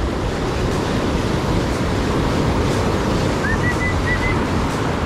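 Sea surf washing and breaking over shoreline rocks, a steady dense rush of water noise with wind buffeting the microphone. A short high whistle comes through about three and a half seconds in.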